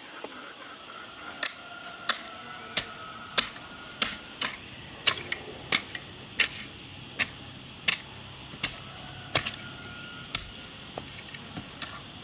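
A run of sharp, evenly paced knocks, about one every two-thirds of a second, fading to a few fainter taps near the end.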